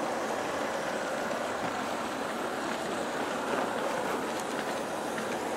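G-scale (1:29) model freight train rolling along its track, a steady rumble of many metal wheels on rail.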